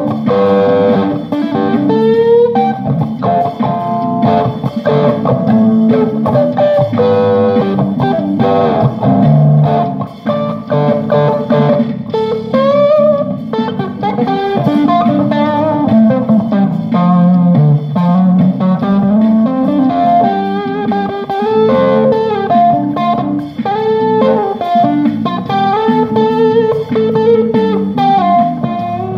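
Electric guitar played in an improvised jam: melodic lead notes, some bending in pitch, over a continuous lower chordal part.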